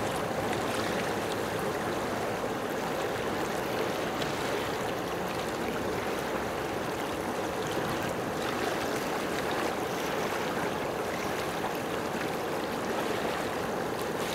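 Steady, even rush of moving water.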